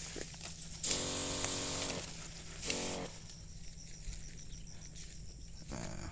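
A small sprayer pump humming steadily while insecticide is sprayed onto a young oil palm's central shoot, with two louder bursts of spray hissing from the lance, about a second long and then a brief one near three seconds in.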